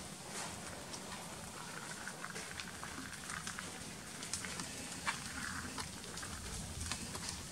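Light, scattered ticks and crunches of macaques moving over loose gravel, with a few faint, short high squeaks.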